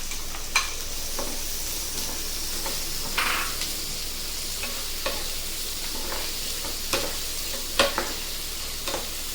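Chopped onion with chillies and garlic frying in hot oil in a pan: a steady sizzling hiss, with a spoon clinking against the pan a few times as it is stirred.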